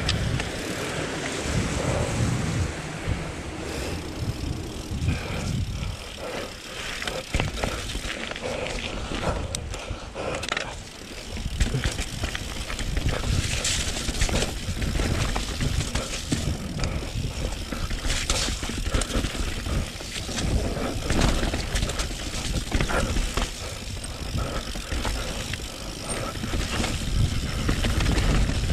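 Mountain bike descending a rough, rooty dirt trail: tyres rumbling over the ground, with frequent sharp knocks and clatters from the bike as it hits roots and rocks.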